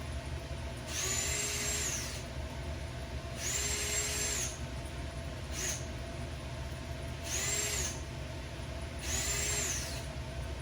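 Power drill drilling out rivet heads in four bursts of about a second each, plus one brief blip in the middle, the motor spinning up, holding and winding down each time.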